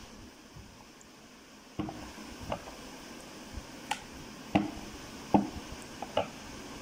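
Hands patting and pressing rolled paratha dough on a wooden rolling board: a handful of irregular light knocks and taps, the loudest two about halfway through, over a steady faint hiss.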